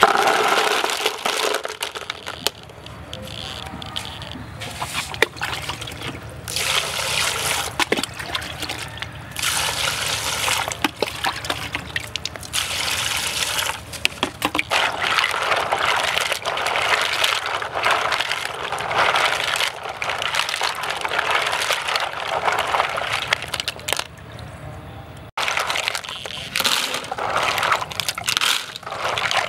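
Mussel shells clattering into a plastic tub, then water sloshing and splashing as the mussels are washed in it, with shells knocking together now and then.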